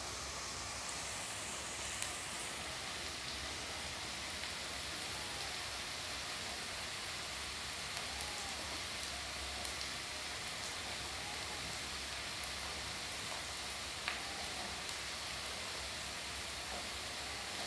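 Onions frying in ghee in a kadai, a steady sizzle, with a few light clicks of a knife cutting through a tomato held in the hand.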